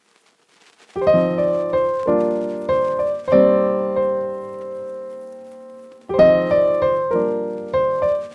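Piano music: a short phrase of chords begins about a second in, rings out, and starts again about six seconds in.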